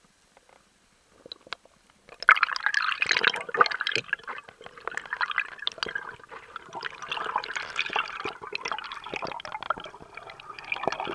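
Underwater bubbling and rushing water around the freediver's camera as he swims up toward the surface: dense crackling and popping that starts abruptly about two seconds in and carries on.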